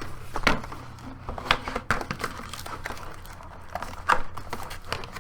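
Packaging inside a keyboard box being pulled apart by hand: rustling and crinkling with a few sharp crackles, the strongest about half a second, a second and a half and four seconds in.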